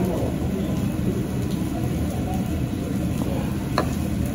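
Steady low rumble of restaurant room noise, with a faint murmur of voices and a small click near the end.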